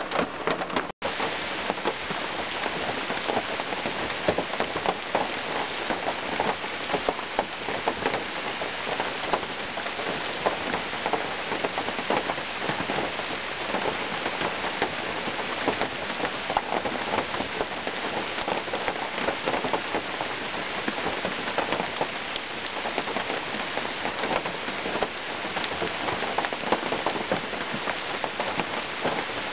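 Heavy rain falling steadily, a dense even patter of drops. The sound cuts out for an instant about a second in.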